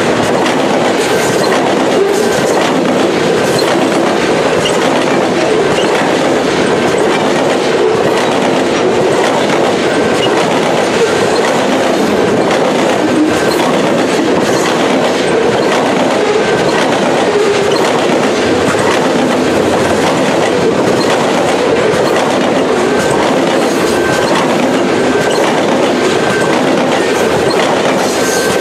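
Covered hopper cars of a long freight grain train rolling past at close range: a steady, loud rumble and clatter of steel wheels on the rails, with a faint high tone now and then.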